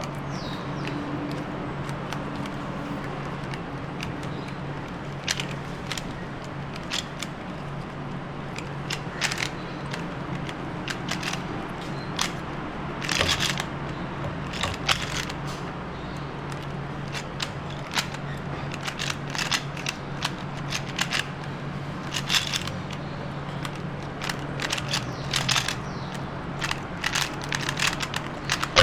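Pyraminx puzzle being twisted quickly by hand: irregular plastic clicks and clacks of its turning pieces, often in quick clusters, over a steady low hum.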